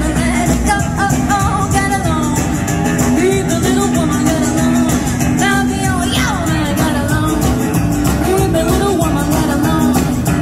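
Live rockabilly band playing: a woman singing over electric and acoustic guitars, upright bass and drums, with a driving, steady beat.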